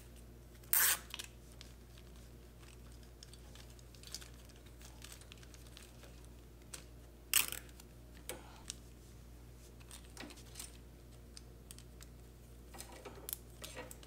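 Hands handling and routing wiring: scattered rustles and small clicks, with two short louder rasps, about a second in and about seven seconds in, and a few more near the end, over a steady low hum.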